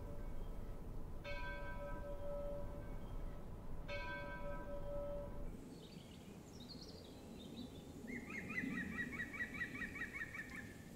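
A church bell tolling slowly, struck twice about two and a half seconds apart, each stroke left to ring out. About halfway through it gives way to birdsong: a few high chirps, then a fast trill of repeated chirps.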